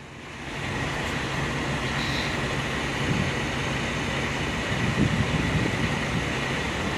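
Semi truck's diesel engine idling close by: a steady low hum with a faint steady whine over it, coming up about half a second in and swelling briefly near the end.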